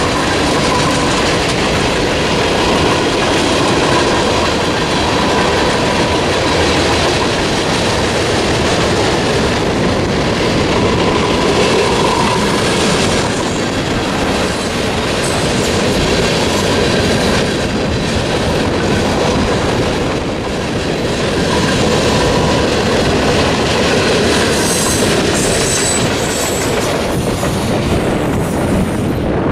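Freight train cars, open and covered hoppers, rolling steadily through a level crossing; the end of the train passes near the end.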